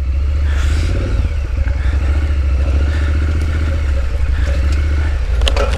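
Triumph Street Scrambler's parallel-twin engine running steadily under way on a rough dirt trail, heard close from a mount on the bike, with loose stones clattering under the tyres and a couple of sharp knocks near the end.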